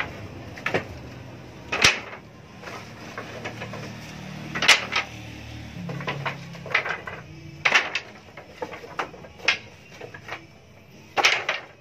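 Small cut wooden strips clacking and knocking together as they are picked up and tossed onto a pile, in irregular sharp knocks with the loudest about five seconds in and again near the end.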